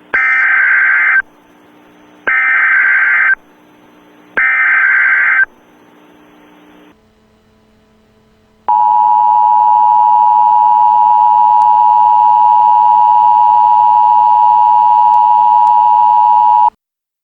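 Emergency Alert System SAME header: three bursts of digital data tones, each about a second long and a second apart. A few seconds later the EAS attention signal, two steady tones sounding together at about 853 and 960 Hz, holds for about eight seconds and then cuts off suddenly, marking the start of an emergency alert.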